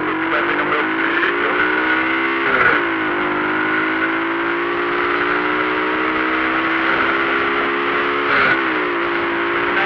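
Motorcycle engine running under way, its pitch climbing as it pulls through a gear. It drops sharply at an upshift about two and a half seconds in, and again near the end.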